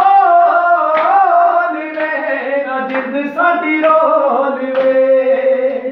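Two men singing together unaccompanied, with long held notes that waver and bend in pitch, and a few hand claps along.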